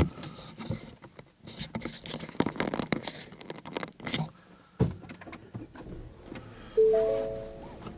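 Rustling and clicking handling noises with a single thump about five seconds in, then near the end an electronic chime of three short tones.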